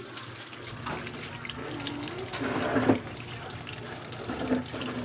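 Water running from a tap in a thin stream into a concrete sink basin, a steady splashing pour.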